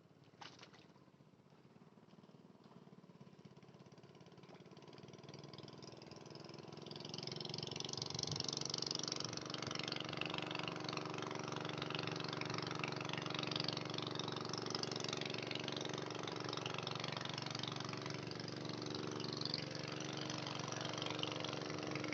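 A boat engine running at a steady pitch. It grows louder over the first eight seconds or so as it comes closer, then runs on steadily, with a hiss over it.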